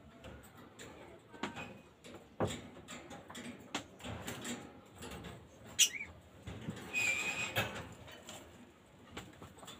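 Bird-cage cleaning and handling noises: scattered knocks and scrapes, the sharpest about six seconds in. A short rising squeak comes right after it, and a longer high squeak about seven seconds in.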